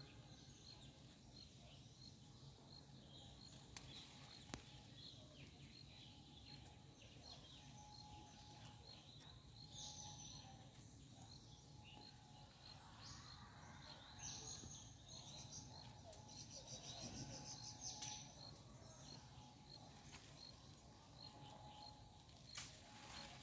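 Faint outdoor wildlife ambience: a steady series of short high chirps about twice a second, with a few louder bursts of chirping around the middle.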